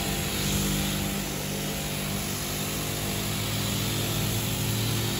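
AVA of Norway P80 electric pressure washer running steadily, its jet hissing against a car wheel and wheel arch while drawing water from a water butt instead of mains, which gives it somewhat less power. Music plays underneath.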